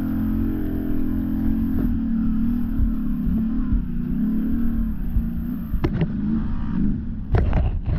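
Can-Am XMR ATV engine running under varying throttle, its pitch rising and falling as it works through mud. A few sharp knocks come about six and seven seconds in.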